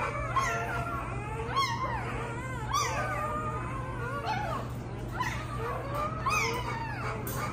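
Newborn XL American Bully puppies squealing and whining, several high, wavering cries overlapping throughout, over a steady low hum.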